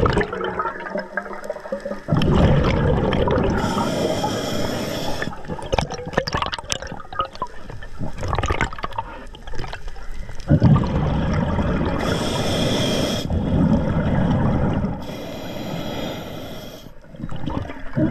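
A scuba diver breathing through an Atomic regulator underwater: hissing inhalations alternate with low bubbling exhalations, about three breaths in all. Scattered small clicks and knocks come in the quieter middle stretch.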